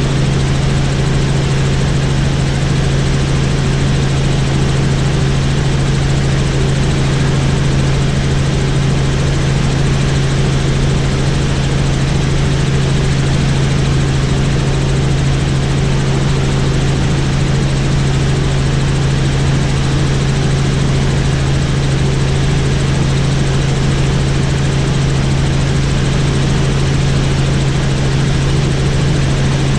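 Helicopter in flight, heard from on board: a steady, loud drone of engine and rotor over a strong low hum.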